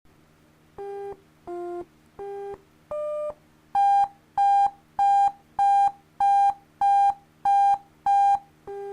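Computer-generated beep tones from a program's sound calls, playing a simple tune: four quieter beeps stepping between low and slightly higher pitches, then eight louder beeps repeated on one higher pitch, about 0.6 s apart.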